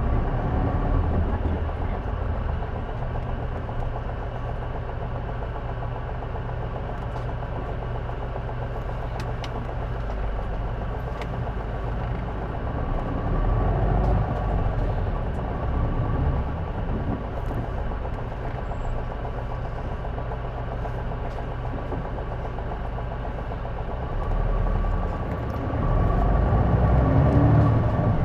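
J-Bus-built city bus engine heard from inside the cabin, running at low speed and idling, with the rumble building twice as the bus pulls away. A faint steady tone runs through it, the odd noise the uploader places somewhere in the exhaust or turbocharger.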